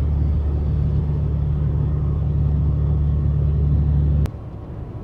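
Steady low drone of a semi truck's engine and road noise heard inside the cab while driving. About four seconds in it cuts off suddenly with a click, leaving a quieter low rumble.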